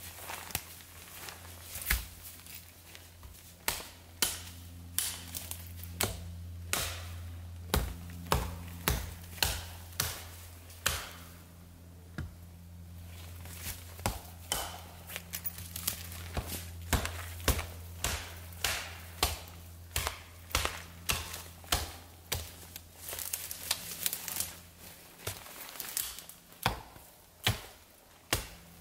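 Hatchet chopping branches off a fallen tree: repeated sharp blows, about one a second, with a short pause near the middle.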